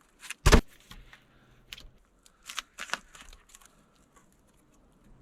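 A heavy thump about half a second in, followed by a few light clicks and knocks.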